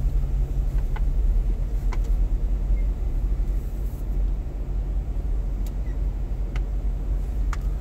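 Low, steady rumble of a car heard from inside the cabin while it creeps in stop-and-go traffic, with a few faint clicks.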